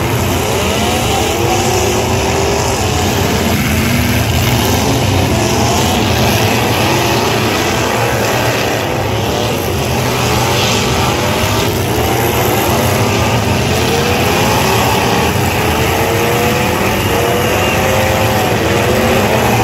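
Several demolition-derby pickup truck engines revving hard at once, their pitches repeatedly rising and falling over a steady low rumble.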